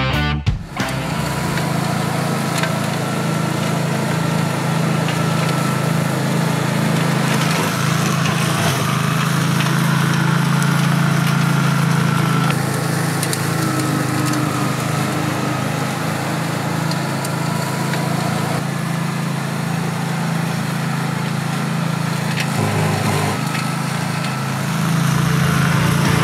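The Briggs & Stratton Vanguard V-twin engine of a Meccanica Benassi FOX 95 flail mower runs steadily under load as the flail rotor cuts through tall grass and weeds. The sound gets a little louder near the end.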